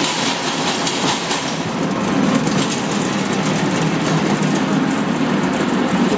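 Stainless-steel vegetable peeling machine running while it peels eggplants, a steady mechanical rattle, with sharper clatter in the first second or so.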